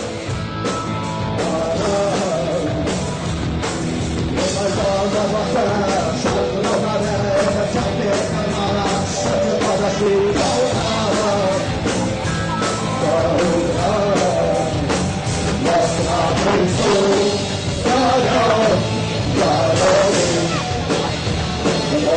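Rock band playing live with a singer: vocals over guitars and drums.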